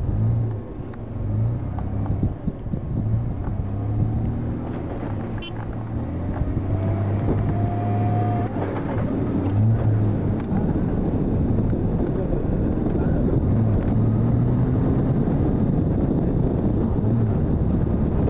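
Four-wheel-drive vehicle's engine running and revving as it drives over soft sand dunes, heard from inside the cabin. The engine note rises and falls, with a rising whine about halfway through, and it grows louder in the second half.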